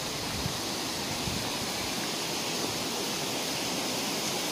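Steady rush of flowing water from a nearby stream, growing slightly louder, with a couple of soft footfalls on a dirt path in the first second or so.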